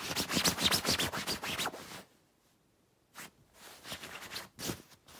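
Duvet fabric rustling and crinkling close to the microphone for about two seconds, then a few brief, softer rustles.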